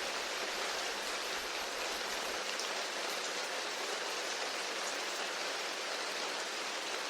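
Steady gentle rain: an even hiss of falling rain with no single drops or thunder standing out.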